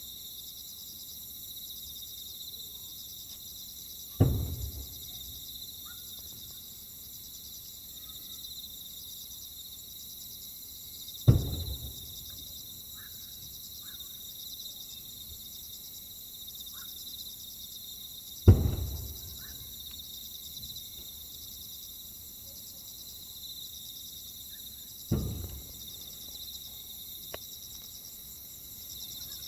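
Four firework shells bursting with deep booms that echo away, about seven seconds apart. Between them a steady high chirring of insects, crickets among them.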